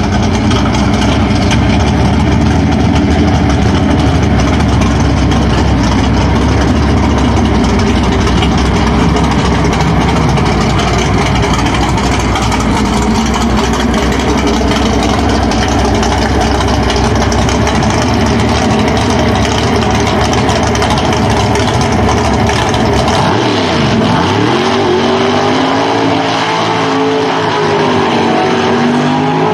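Mountain-motor Pro Stock drag car's big-block V8 running loud and steady, then revving with its pitch dipping and climbing through a burnout over the last several seconds.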